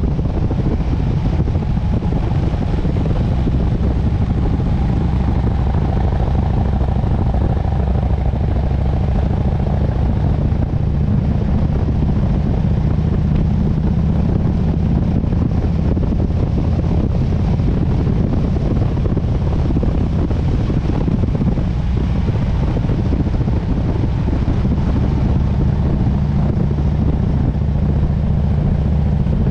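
Harley-Davidson Sportster S motorcycle's V-twin engine running at a steady cruising pace with an even hiss of wind and road noise, heard from on the moving bike.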